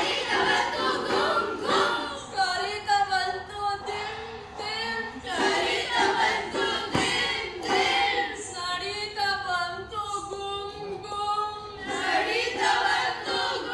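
A group of children singing together in chorus, several voices holding the notes of a song.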